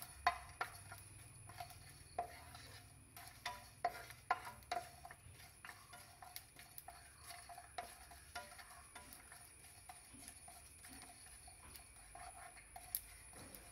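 Wooden spatula stirring fennel seeds, garlic cloves and cinnamon roasting in a nonstick frying pan: irregular light taps and scrapes against the pan, more frequent in the first few seconds.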